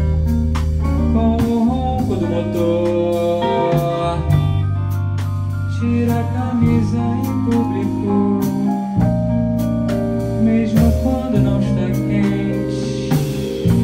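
Live rock band playing a song: drum kit, bass guitar and electric guitar, with a male voice singing over them.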